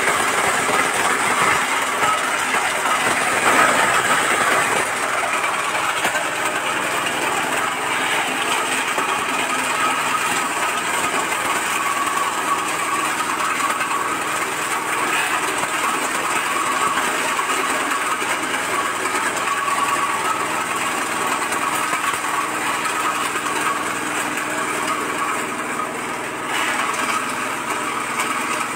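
Areca nut cracking machine running under load, driven by a small stationary engine, with nuts clattering through the cracker. The clatter is densest and loudest in the first few seconds, then the machine runs on steadily.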